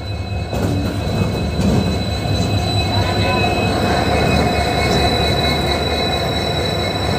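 Indian Railways diesel locomotive rolling slowly past at close range with its engine running, a loud steady drone with a thin high whine over it. It is a light-engine move to couple onto the train. The sound grows louder about half a second in as the locomotive comes alongside.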